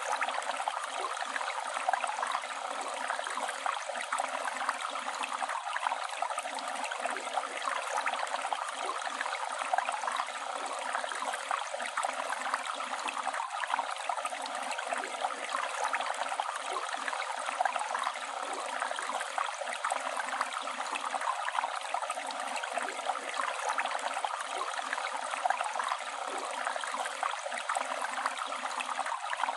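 Flowing river water rushing and gurgling steadily, with no breaks or changes.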